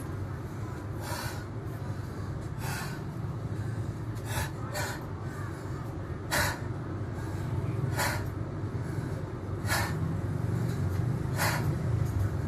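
A man's forceful rhythmic breathing, a sharp breath about every second and a half: yogic pranayama-style breathing while he recovers from hard exertion.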